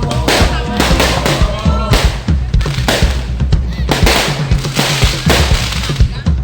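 Fireworks and firecrackers going off in rapid, irregular bangs, several a second. Underneath is loud music with a heavy low beat, and voices are chanting briefly near the start.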